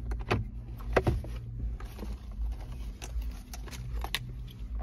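A car glove box being unlatched and opened, with several short clicks and knocks from the latch, lid and things being handled inside, over a low steady hum.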